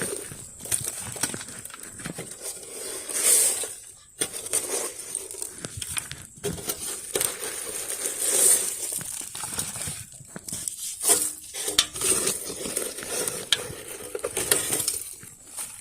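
Wet leaves and debris being scooped and scraped out of a gutter by hand, with irregular scraping, rustling and clinking against the gutter.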